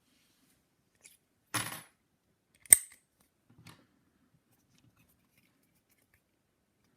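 Lock-picking tools clicking and rattling against a padlock's keyway: a faint tick, a brief metallic rattle, then one sharp click and a last faint one.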